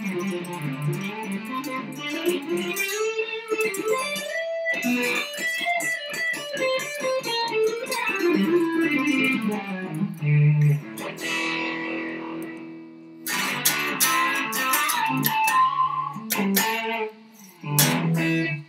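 Home-built electric guitar with an old pine body and a Seymour Duncan pickup being played: melodic single-note lines and runs, then a chord left ringing out and fading about halfway through, then strummed chords that stop abruptly at the end.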